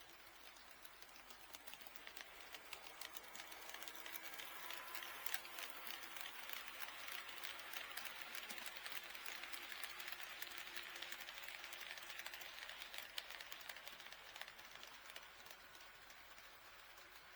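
HO scale model train passing on the layout: its wheels run with fast, dense clicking over the track joints. The noise builds, is loudest in the middle and fades away near the end.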